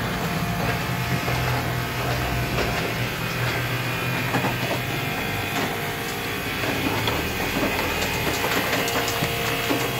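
Hoshizaki commercial ice maker running: a steady low machine hum with many small clicks and rattles over it.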